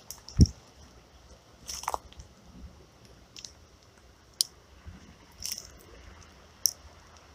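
Close handling noises: one heavy low thump about half a second in, then a handful of sharp clicks and short crunching rustles spread through the rest.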